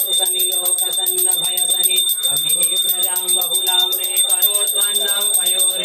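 Brass hand bell rung rapidly and without pause during an aarti, its high ring held steady, over a voice chanting.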